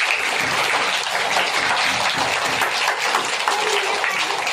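A room of young children clapping and applauding together, a dense patter of many small hands.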